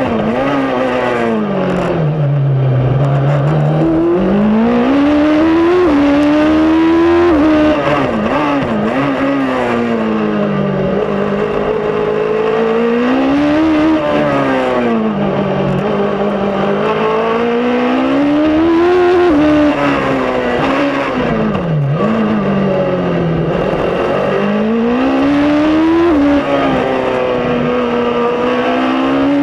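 Suzuki Hayabusa inline-four motorcycle engine in a Fiat X1/9-based race car, heard from inside the cockpit at racing pace. The revs climb and fall again and again through the corners, with a few quick jagged drops and blips near eight and twenty-two seconds in.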